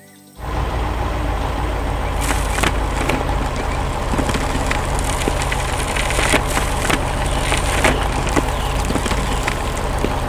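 Heavy construction machine sound effect: a steady low engine rumble with many irregular cracks and crunches over it, starting suddenly about half a second in.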